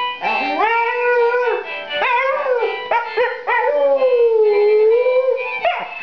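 Staffordshire Bull Terrier howling, a run of wavering calls that rise and fall in pitch, the longest held about two seconds in the middle.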